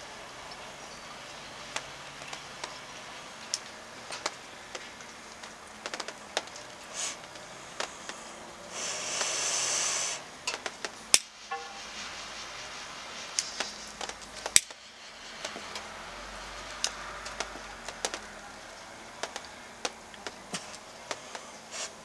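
A cigar being lit and puffed: scattered small clicks and lip smacks from drawing on it, with a lighter flame hissing loudly for under two seconds about nine seconds in, and again more faintly later.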